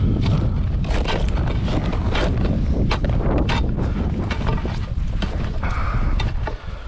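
Ice chisel chopping into slushy snow and ice: dull thuds about every half second, over a steady low rumble.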